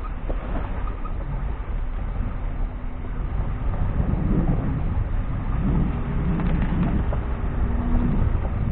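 Vehicle engine running under load while driving off-road, a steady low rumble that grows louder about four seconds in, with the pitch shifting as it revs.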